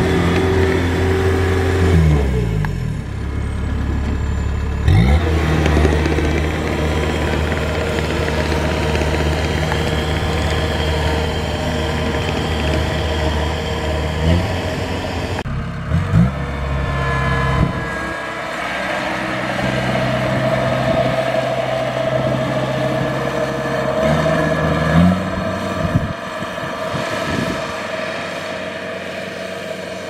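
Diesel engine of a rice combine harvester running under load, its pitch falling and rising several times as the engine speed changes. It grows quieter over the last few seconds.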